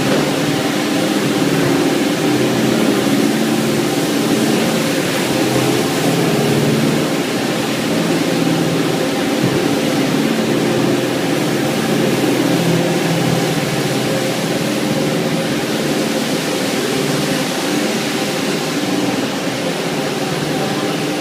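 Cleanvac BRS 320 automatic carpet washing machine running as it washes a foam-covered carpet: a steady machine hum with an even hiss over it, from its four brushes driven by geared motors.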